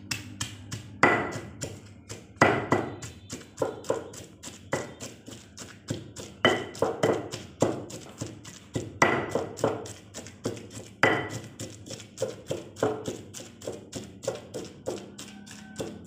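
Stone pestle pounding a wet spice paste in a tall stone mortar: a rapid, steady run of thuds, about three or four strokes a second, with every few strokes landing harder and louder.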